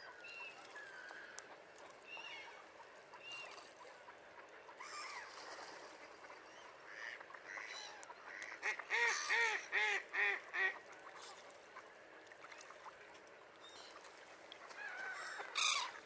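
Mallards and gulls calling: scattered short calls, then a quick run of about seven loud calls, about three a second, around nine to eleven seconds in, and another loud call near the end.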